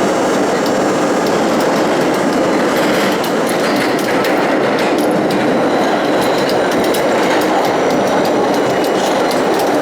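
R32 subway train running, a steady loud rumble with rapid clicking of the wheels over rail joints.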